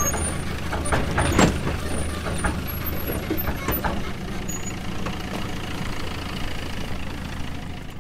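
Excavator engine running steadily while the machine works, with scattered metallic clanks and knocks. The loudest clank comes about a second and a half in, and the sound fades out near the end.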